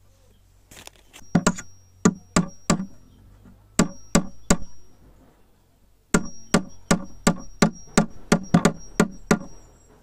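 Claw hammer striking wood on a homemade wooden beehive box, in three runs of sharp blows. The last run is a quick, even series of about ten strikes. A faint metallic ring follows the blows.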